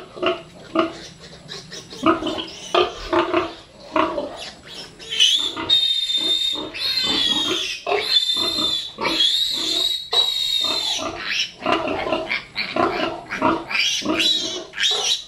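A young piglet being held and handled grunts and gives short squeals, then from about five to ten seconds in lets out a series of long, high-pitched distress squeals, and goes back to shorter squeals and grunts near the end.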